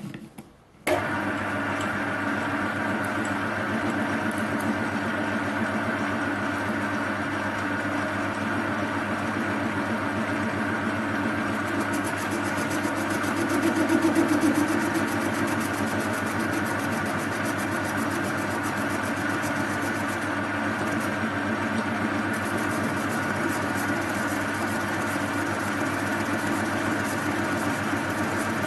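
Metal lathe switched on about a second in, its motor and gear train then running with a steady hum; it briefly swells in loudness about 14 seconds in.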